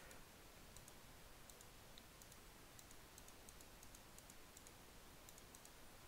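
Near silence with faint, scattered clicks of a computer mouse, several in quick pairs.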